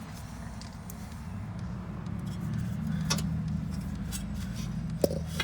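A low, steady vehicle engine rumble that slowly grows louder, with a couple of light clicks about three and five seconds in.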